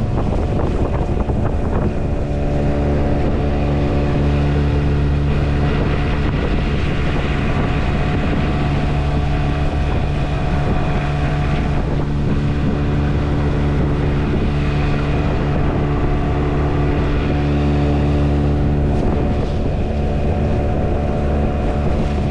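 A boat's outboard motor running at a steady speed: an even engine drone that holds the same pitch throughout.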